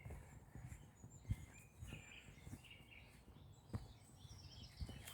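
Faint birdsong in woodland: scattered short chirps and warbled phrases, with a few soft low thumps in between.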